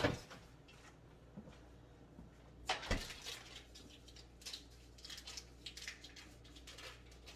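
Cookware being handled at a stove: a knock right at the start and a louder one about three seconds in, then scattered small clicks and rustles over a faint steady low hum.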